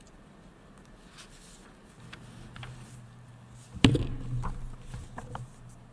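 Handling noise picked up by a lectern microphone: one sharp knock a little before four seconds in, then several softer thumps and rustles as papers are set down and arranged on the lectern. A faint steady hum begins about two seconds in.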